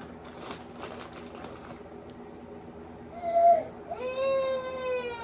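A young child crying: a short cry about three seconds in, then a long high-pitched wail that slowly drops in pitch. Faint rustling and light taps come before it.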